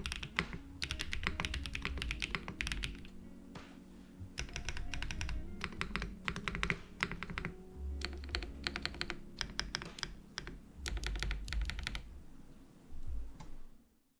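Fast typing on a custom mechanical keyboard, an IM+ Meta with a polycarbonate plate, lubed JWK Endless Summer switches, GMK keycaps and plate and case foam. The keystrokes come in quick runs of a second or two with short pauses between, over soft background music, and the sound fades out near the end.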